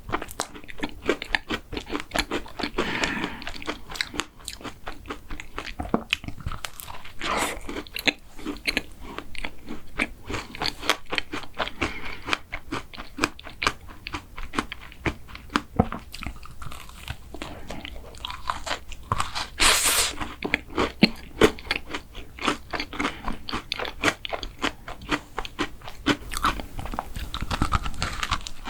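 Close-miked eating of mint chocolate ice cream cake: biting and chewing with many crisp, irregular crunches, and one louder crunch about two-thirds of the way through.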